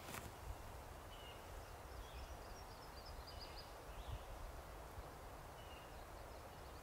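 Faint woodland ambience: small birds chirping, with a short trill about three seconds in, over a low steady rumble.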